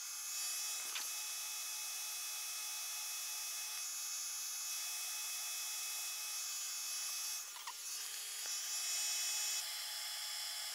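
Makeblock Laserbox Pro laser cutter running a cutting job in a sped-up recording: a steady hiss with several steady high tones and a few light ticks.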